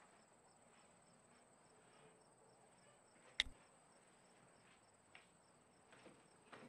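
Near silence: a faint steady high hiss of room tone, with one short sharp click about halfway through.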